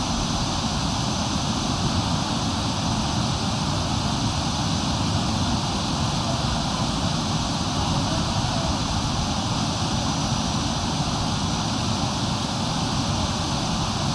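Waterfall rushing close by: a steady, unbroken wash of falling water.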